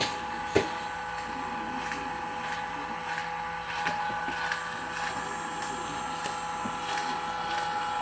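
Electric motor of a Porter-Cable 2610 machine running steadily with an even whine during a test run, with a sharp knock about half a second in and a few faint clicks.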